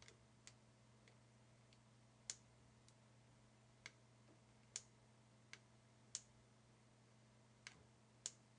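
Near silence broken by a dozen or so faint, sharp clicks at irregular intervals: a stylus tapping a drawing tablet as handwriting is drawn.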